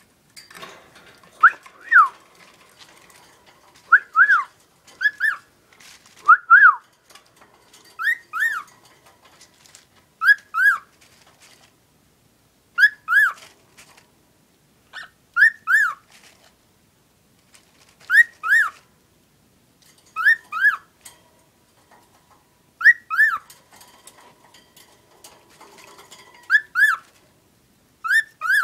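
A person and a pet cockatiel trading the same short whistled phrase back and forth, one repeat about every two seconds. Each phrase is two quick notes that swoop up and down.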